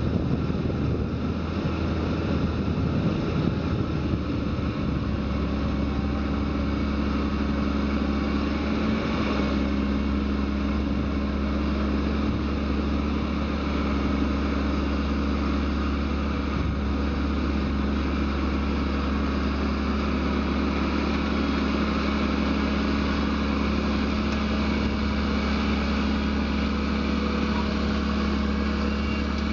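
Fendt 936 Vario tractor's six-cylinder diesel engine running steadily under load as it pulls a seven-furrow Kverneland plough through the soil, with an even, constant drone.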